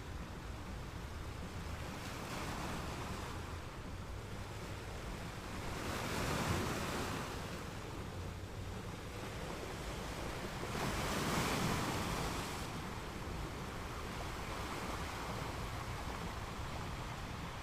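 Ocean waves breaking and washing up the shore, with a steady background rush of surf. Two waves swell up louder, one about six seconds in and a bigger one about eleven seconds in.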